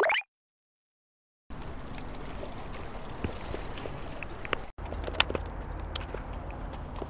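Steady water noise, with scattered light clicks and knocks. A short loud rising swish opens it, then the sound cuts out completely for about a second.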